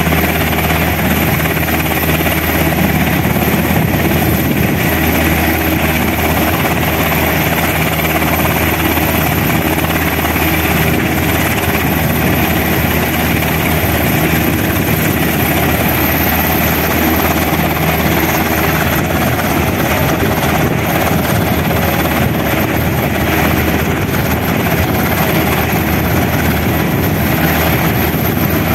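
Sikorsky UH-60L Black Hawk, a twin-turboshaft helicopter with a four-blade main rotor, running steadily on the ground with its rotors turning. A constant high whine sits over the rotor and engine noise, with no change in pitch or level.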